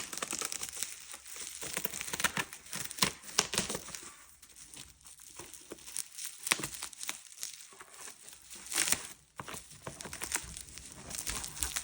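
Packaging material crinkling and tearing as a parcel is unwrapped by hand, in irregular crackly bursts with louder spells about three, six and nine seconds in.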